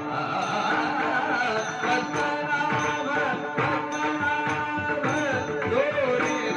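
Marathi Varkari bhajan: a male voice singing with ornamented slides in pitch, over small brass hand cymbals (taal) struck in a steady rhythm and the steady drone of a veena.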